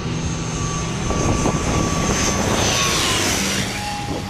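Large airliner passing low overhead on landing approach: a steady high engine whine over broad engine noise that swells about a second in and peaks in the middle, with the pitch sweeping down as the plane goes over.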